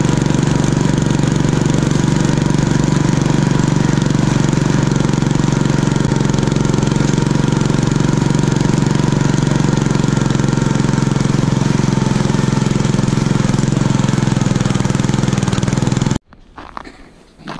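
Homemade garden tractor's 6.5 hp single-cylinder engine running steadily under load while plowing wet snow with a front blade. The engine sound cuts off abruptly near the end.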